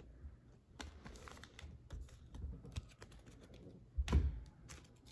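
Light clicks and taps of trading cards and foil card packs being handled on a tabletop, with a louder low thump about four seconds in.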